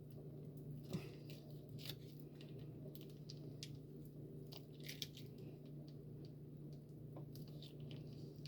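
Faint, scattered small clicks and taps of kitchen utensils and containers being handled, over a steady low hum.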